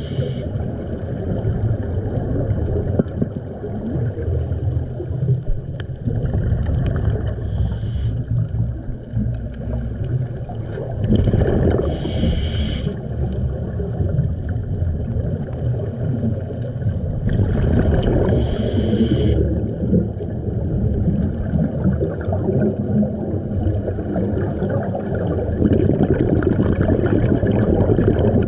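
Scuba regulator breathing recorded underwater: a hiss of about a second with each inhalation, coming several times every few seconds, over the bubbling rumble of exhaled air.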